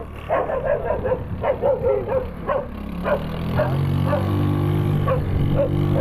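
Dog barking rapidly and repeatedly at a passing motorcycle, the barks thinning out after about three seconds. The motorcycle's engine grows louder about halfway through as the rider pulls away.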